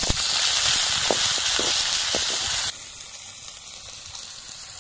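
Crushed ginger-garlic paste sizzling in hot sesame (gingelly) oil with fennel seeds and chillies in an aluminium pot: a loud hiss with a few pops. About two and a half seconds in it cuts off abruptly, leaving only a faint steady hiss.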